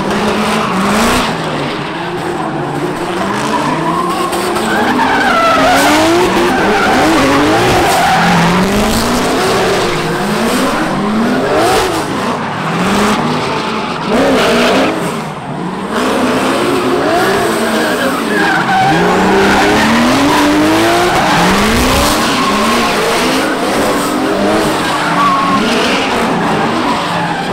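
Drift cars sliding together, their engines revving up and down again and again over tyre squeal.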